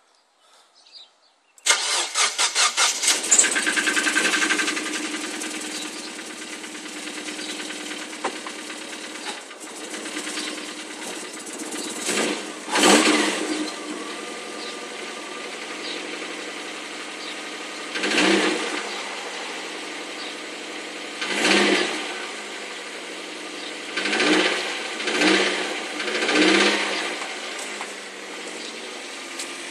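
2004 Mazdaspeed Miata's turbocharged 1.8-litre four-cylinder engine starting from cold about two seconds in, running at a fast cold idle, then revved briefly about six times in the second half. It carries a knock that the owner hears when cold and suspects is a failed rod bearing.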